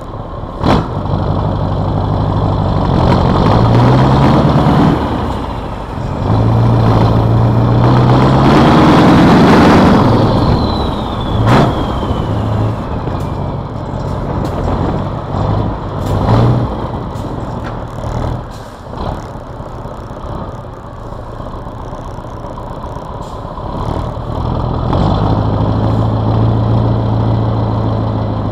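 Scania 142M's turbocharged, intercooled V8 diesel heard from the cab roof beside its vertical exhaust stack while driving. It pulls up through the revs twice, dropping back between, then runs quieter for a while before pulling again near the end. A few sharp knocks cut through it.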